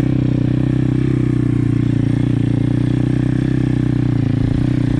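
Apollo RFZ pit bike's single-cylinder four-stroke engine running at a steady pitch as the bike is ridden along at an even throttle.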